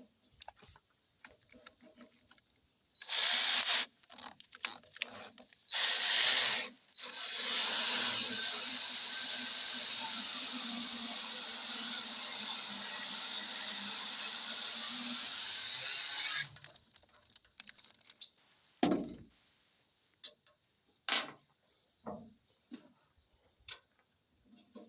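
Power drill run in two short bursts, then held at a steady speed for about eight seconds, working a thread in steel with a worn 3/8 tap. A couple of sharp clicks follow near the end.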